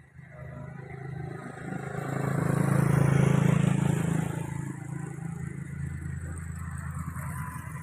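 Tracked excavator's diesel engine running under load as the bucket digs. The engine note swells to its loudest about three seconds in, then settles to a steady run.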